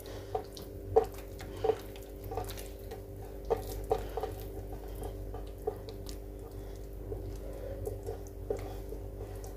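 Irregular soft taps and squishes of hands rolling and coiling oiled, stuffed dough against a glazed clay bowl, over a steady low hum.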